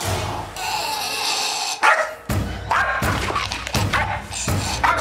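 Jack Russell terrier barking aggressively: a quick run of short, sharp barks beginning about two seconds in.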